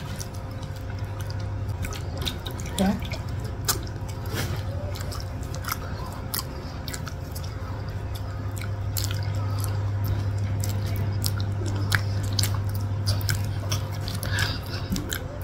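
Close-up eating sounds of durian flesh being chewed: soft chewing with many small mouth clicks and smacks, over a steady low hum that grows louder about halfway through.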